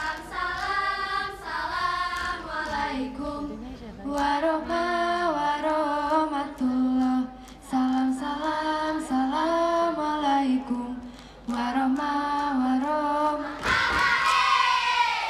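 Voices singing together without instruments in short chanted phrases, with a few sharp claps between them. Near the end comes a louder, higher held phrase that bends up and falls away.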